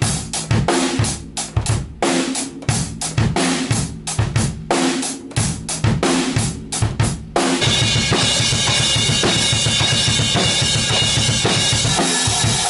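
Acoustic drum kit being played: a beat of bass drum and snare hits for about seven seconds. Then it turns suddenly into fast, dense playing with cymbals ringing without a break.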